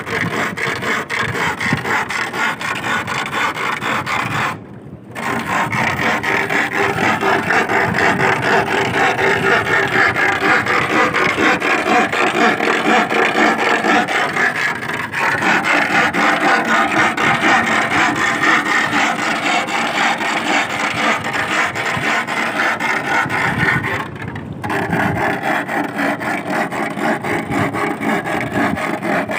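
An iron bar rubbed rapidly back and forth against a wooden stake driven into the tidal flat. This is a continuous rasping rub that sends vibrations into the sand to drive sea worms (sasing) out of their burrows. It breaks off briefly twice, about five seconds in and again about five seconds before the end.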